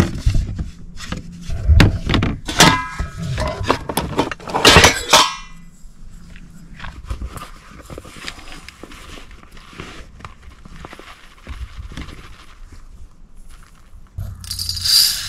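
Knocks and clatter of a small electric rice cooker's pot and lid being handled as rice is set up to cook, with two short rushing sounds in the first few seconds. Quieter after that, with a short hiss near the end.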